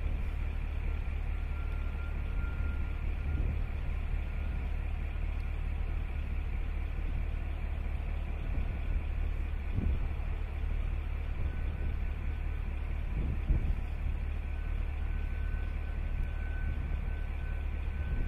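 A Lockheed U-2's jet engine heard from the ground as the plane comes in low: a steady low rumble, with a thin high whine that grows stronger near the end as the aircraft gets closer.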